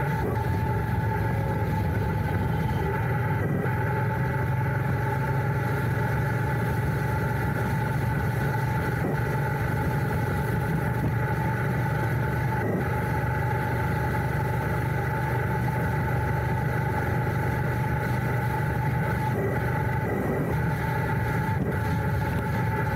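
Royal Enfield Interceptor 650's 648 cc parallel-twin engine running at steady revs, picked up close by a handlebar-mounted microphone.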